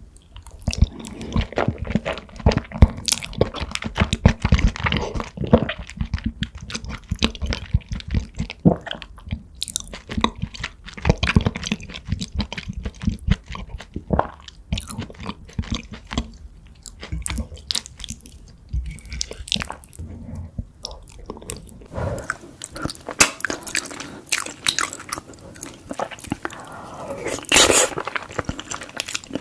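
Close-miked chewing and biting of mouthfuls of lasagna: wet smacking and squelching with crunchy bites, dense and irregular. About three-quarters of the way through the sound turns thinner, with less low rumble.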